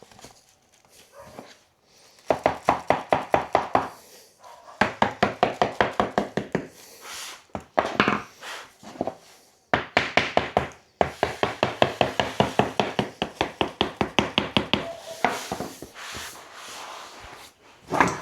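Bamboo click flooring boards being knocked into place, in quick runs of evenly spaced knocks, several a second, with short pauses between the runs.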